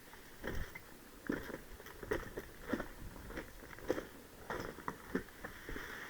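Short crunching steps at an uneven pace, roughly one or two a second, with rustling of gear: a player moving carefully on foot.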